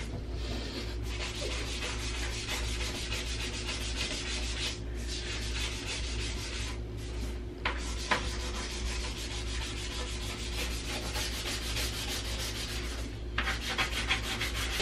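Small scrub brush scouring a kitchen countertop's corners and edges: rapid scratchy back-and-forth strokes with a few brief pauses.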